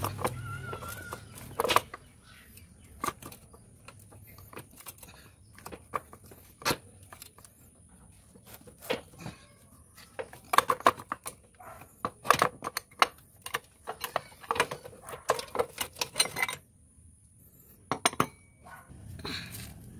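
Motorcycle roller chain clinking and rattling as it is worked by hand off the rear sprocket: scattered metal clinks that come thickest in the middle, then a short pause before a last few clinks near the end.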